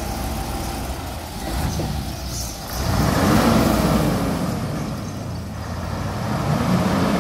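Mercedes-Benz heavy truck's diesel engine pulling a loaded trailer from low speed, getting louder about three seconds in as it is revved, with its pitch rising and then falling.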